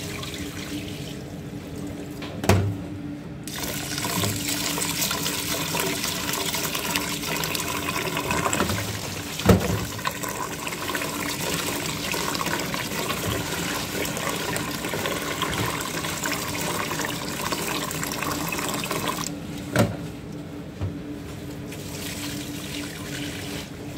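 Tap water running into a stainless steel pot of rice as a hand swishes and rubs the grains to rinse them. The tap comes on a few seconds in and stops a few seconds before the end. A few sharp knocks are the loudest moments.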